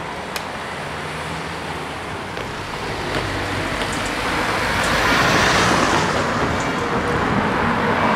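Road traffic crossing the level crossing: a van and cars driving past close by, the engine and tyre noise swelling and loudest about five seconds in as a car passes nearest.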